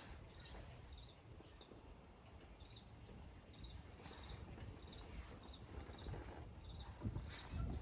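Cricket chirping: short, high, pulsed chirps repeating every second or so, over faint low rustling and handling noise that gets louder near the end.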